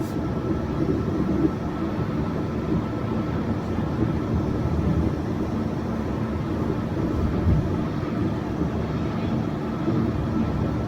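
Yurikamome rubber-tyred automated train running steadily: a continuous rumble of its tyres on the guideway, with a faint steady whine above it.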